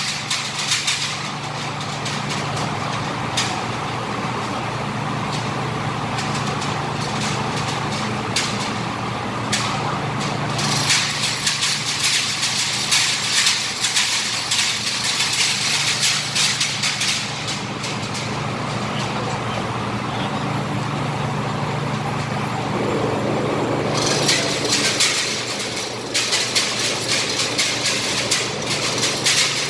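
Manual chain hoist clicking and rattling in bursts as it is hauled to lift a heavy centrifugal exhaust blower, over a steady low machine hum.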